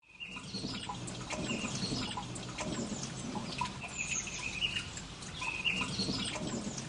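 Birds chirping in short repeated calls over a soft steady hiss with scattered faint ticks.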